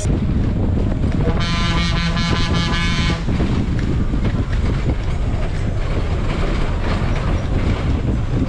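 Bus horn sounding one sustained blast of nearly two seconds, starting about a second and a half in, over the steady low rumble of the bus's diesel engine heard from the driver's cabin.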